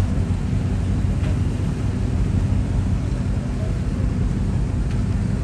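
Low, steady engine rumble, typical of a large motor yacht's diesel engines running while it manoeuvres to dock, with some wind on the microphone.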